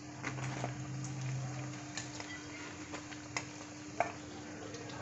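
Sabudana vadas deep-frying in a steel kadai of hot oil: a steady sizzle, with a few light clicks of steel tongs against the pan and plate as the fried vadas are lifted out.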